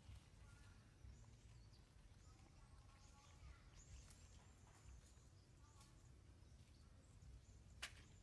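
Faint animal calls: short high squeaks and chirps come and go over a low background rumble, with one sharp click near the end.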